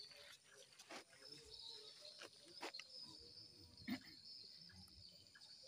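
Near silence with a faint, steady high chirring of night insects, broken by a few soft clicks, the loudest about four seconds in.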